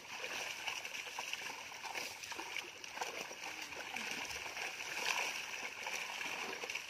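Pond water splashing and trickling steadily off a wet cast net as it is held up and worked over the water.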